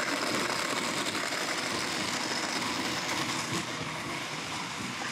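Blendtec Designer 625 blender motor running its ice cream preset in the Twister jar, churning ice and chopped vegetables into a thick frozen mix. The motor runs steadily, then eases slightly in level about three and a half seconds in.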